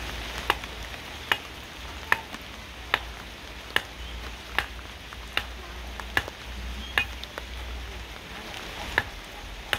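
Machete chopping catfish on sacking: a steady run of sharp strikes about every 0.8 s, pausing briefly near the end, over a steady hiss of light rain.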